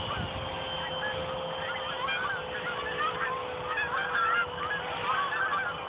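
A flock of geese honking overhead, many short calls overlapping, thickening from about two seconds in. Under them runs a faint steady whine from the twin electric ducted-fan model jet flying at a distance.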